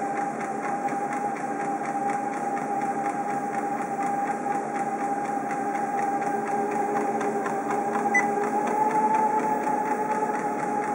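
Motorized treadmill running at a steady speed: a steady motor whine over the whirr of the moving belt, rising slightly in pitch about three quarters of the way through.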